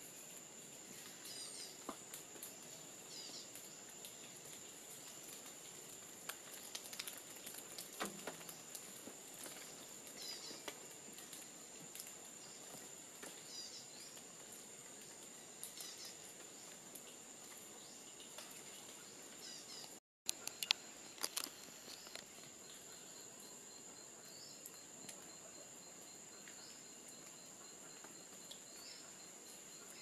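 Forest ambience: a steady high-pitched insect drone with short chirps repeating every couple of seconds and scattered faint clicks. About two-thirds through, the sound drops out for a moment, then a few louder clicks follow.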